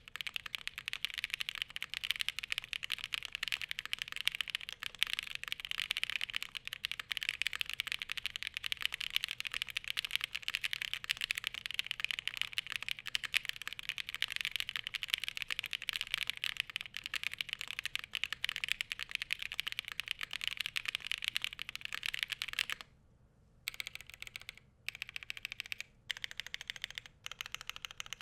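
Fast, continuous typing on a Glacier80 custom mechanical keyboard with SOTC switches and thick foam dampening: a dense run of key clacks, broken by a few short pauses near the end.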